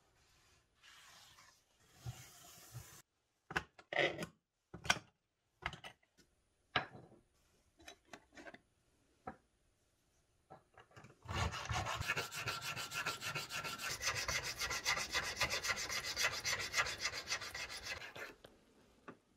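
Scattered knocks and clicks, then a needle file rasping back and forth in quick strokes inside the slot of a small wooden knife-handle piece for about seven seconds, opening the tang hole to fit the knife's tang.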